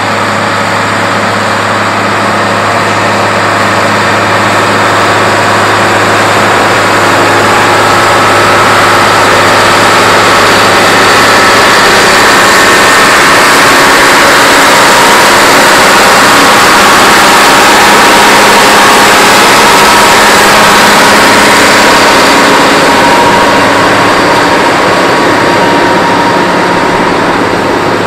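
John Deere 4960's turbocharged six-cylinder diesel running hard under load as it pulls a weight-transfer sled. A steady, heavy engine drone that grows louder toward the middle and eases off near the end.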